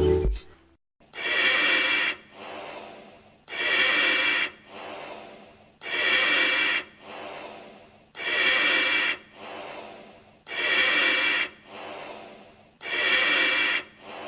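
Slow, even breathing through a gas mask: six cycles about two and a half seconds apart, each a louder hissing breath with a hollow, whistling ring through the mask, then a softer, shorter one.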